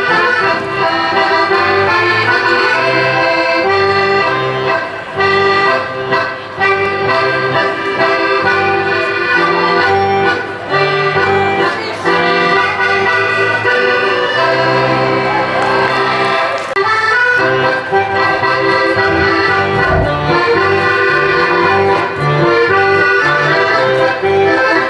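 Accordion playing a lively Dutch folk dance tune, a melody over a repeating bass pattern, without a break.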